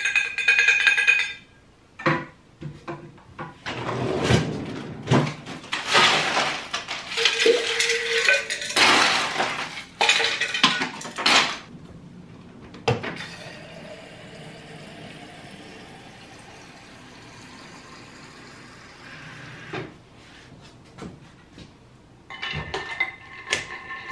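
Insulated metal water bottle and its straw lid being handled: ringing metallic clinks, then a long stretch of loud irregular clattering. A quieter steady rush of water runs into the bottle at the refrigerator for about seven seconds, and more ringing clinks come near the end as the lid goes back on.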